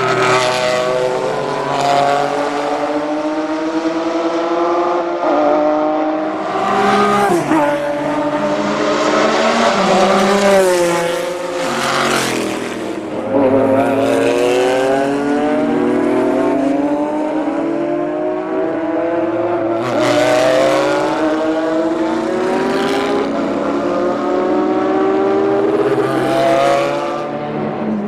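Porsche 996 GT3 RSR's flat-six racing engine at full throttle, its pitch climbing through the gears with sudden drops at each upshift, and a stretch of quick downshifts with throttle blips under braking in the middle.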